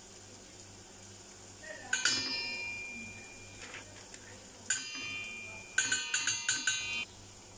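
Metal spoon clinking against a cooking pot as cornstarch is spooned into the soup base: one ringing clink about two seconds in, another near five seconds, then a quick run of about seven taps on the rim.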